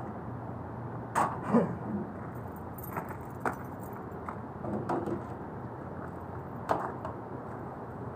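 Scattered short metallic clinks and knocks, about six spread over several seconds, from handling an air-conditioner outdoor unit, over a steady low hum.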